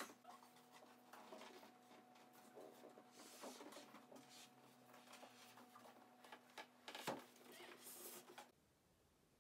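Faint knocks, scrapes and rustling as a large white IKEA Liatorp bookcase is tipped and shifted on a sheet over a wooden floor, over a faint steady hum. One sharper knock comes about seven seconds in, and the sound cuts off suddenly near the end.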